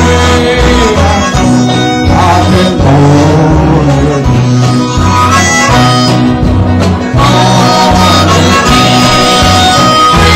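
Live bluegrass gospel band playing with no words sung: strummed acoustic guitars and a bass line stepping between a few notes, with a sustained lead melody on top.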